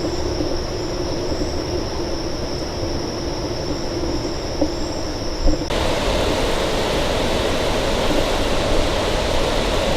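Steady outdoor background noise with a low rumble and a high, steady whine. A little past halfway the sound changes abruptly to a louder, fuller, even rush and the whine is gone.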